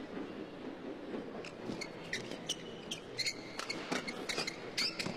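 Badminton rally: sharp racket strikes on the shuttlecock and short squeaks of shoes on the court, coming thick and fast from about a second and a half in, over a low murmur from the arena crowd.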